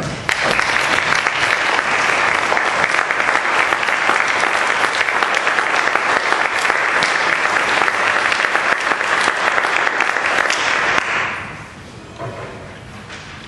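Audience applauding, a dense steady clapping that starts suddenly and dies away about eleven seconds in.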